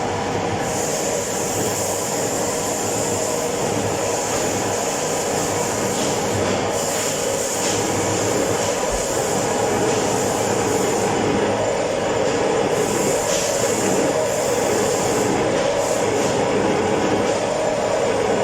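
Metal lathe running while machining a metal casting: steady machine noise with a constant hum and a high-pitched whine that comes and goes.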